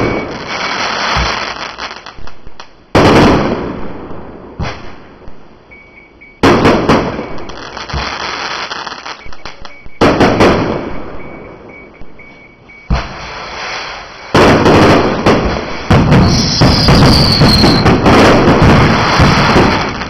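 Aerial fireworks bursting overhead: a loud bang every few seconds, each trailing off into crackling, then from about three-quarters of the way through a continuous rapid barrage of bangs and crackle.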